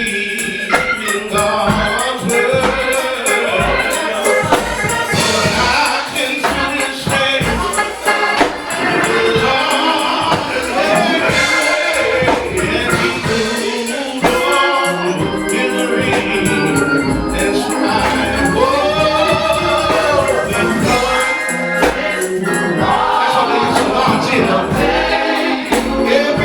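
Gospel choir singing with music and a tambourine.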